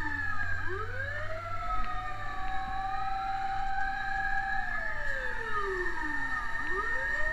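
Several fire-truck sirens wailing at once, each sweeping slowly up and down in pitch out of step with the others.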